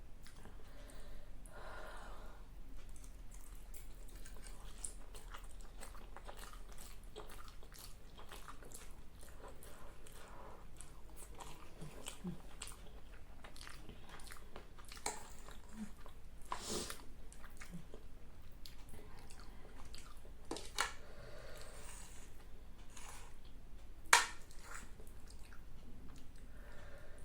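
Close-miked chewing of a big mouthful of spicy black bean noodles, with wet lip smacks and mouth clicks throughout. A single sharp click stands out near the end.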